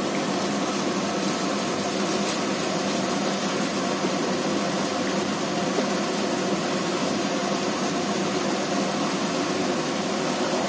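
Onion and spice masala sizzling steadily in hot oil in a kadhai as a spatula stirs it, over a faint steady hum. This is the bhunai stage, frying the masala until the oil comes up to the surface.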